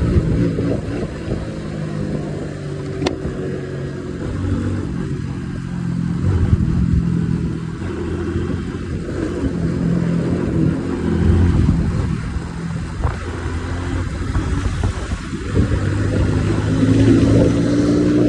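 Motorcycle engine on a test ride, revving up and easing off again and again, its pitch rising and falling as it pulls. The bike has just been serviced with a new air filter.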